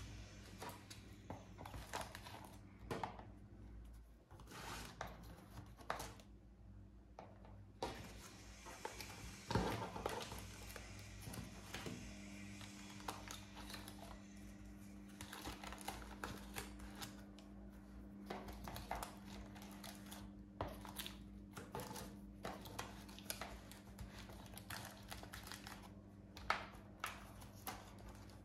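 Small zip-lock plastic bags of air-dry clay being handled and shuffled in a cardboard box: irregular soft crinkles and light taps, with a faint steady hum underneath.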